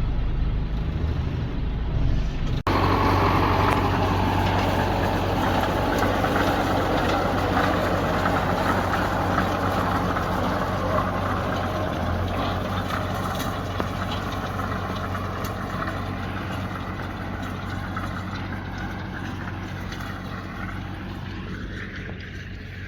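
Tractor engine running steadily while it pulls a hay rake rowing up hay, with rattling machinery noise over the engine. It changes abruptly a couple of seconds in, then slowly fades.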